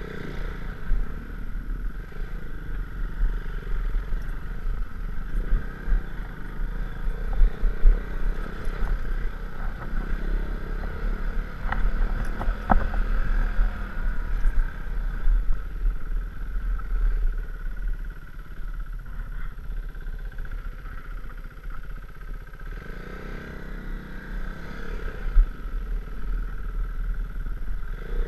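KTM Duke 390's single-cylinder engine running steadily as the bike is ridden off-road, with a few sharp knocks about twelve seconds in.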